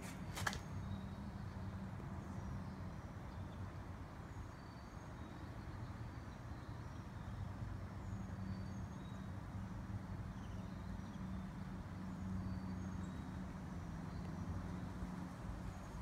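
A steady low hum that swells and fades, with faint short high chirps of distant birds scattered through it and one sharp click about half a second in.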